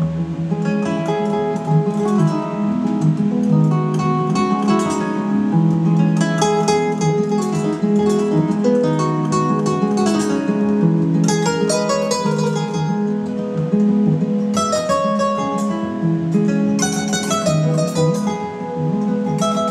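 Acoustic guitar music in a flamenco style: picked melody notes broken several times by fast strummed chords.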